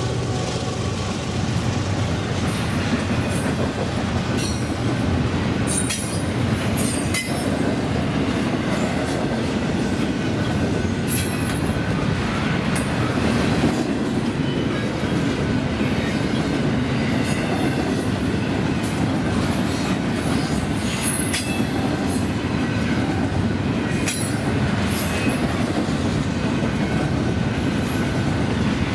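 Double-stack intermodal train's well cars rolling past: a steady rumble of steel wheels on rail with some clickety-clack, and brief high-pitched wheel squeals every few seconds.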